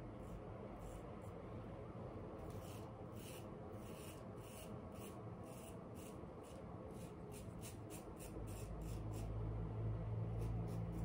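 Straight razor scraping stubble through shaving lather on the upper lip and chin in short, quick strokes, about three a second. A low steady hum comes in about eight seconds in.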